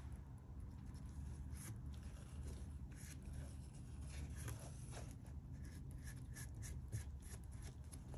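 Faint rubbing and light ticking as gloved hands grip and tilt a wet paint-covered canvas, over a low steady hum.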